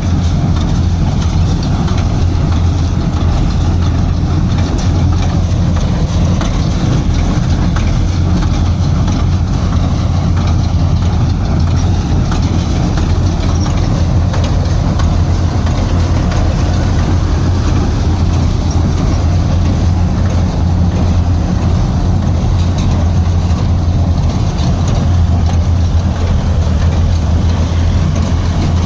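Machinery running steadily, a loud continuous drone with a strong low hum.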